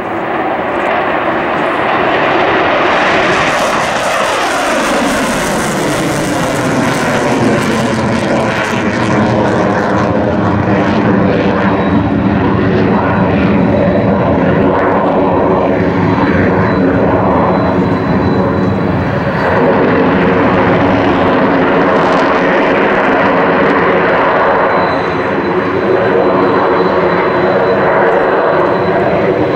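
F-22 Raptor's two afterburning turbofan engines running at full power in afterburner during takeoff and a steep climb: loud continuous jet noise, with a falling, sweeping tone as the jet passes a few seconds in.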